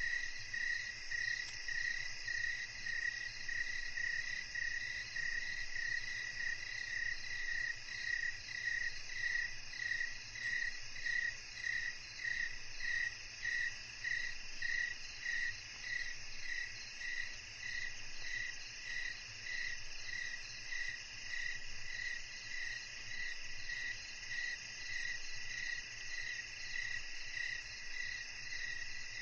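Crickets and other insects calling at dusk: one evenly pulsing chirp, a little under two a second, over a steady high-pitched insect drone.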